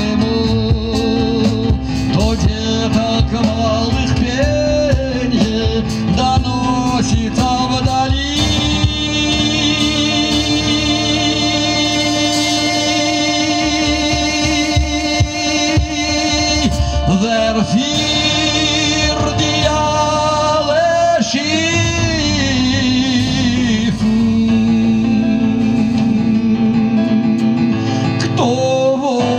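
Live band music: a man singing over keyboard and double bass, with cajón strikes over the first few seconds giving way to long held notes.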